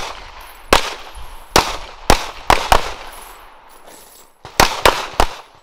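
Pistol shots from several shooters firing at once: about eight sharp, irregular shots, some in quick pairs, each with a short echo.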